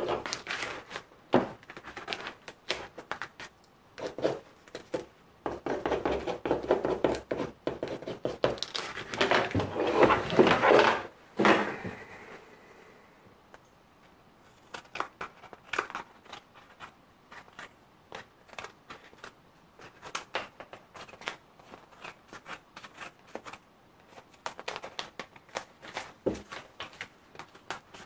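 Masking-tape pattern crinkling and tearing as it is pulled off a fursuit ear for about the first twelve seconds, then small scissors snipping through the stiff tape-and-paper pattern in short, scattered cuts.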